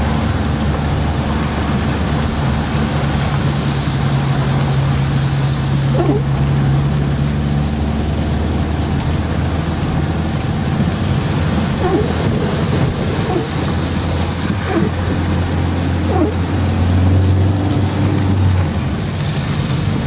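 Car driving slowly through floodwater covering the road in heavy rain, heard from inside the cabin: a steady engine hum under the wash and splash of water from the tyres and rain on the windscreen.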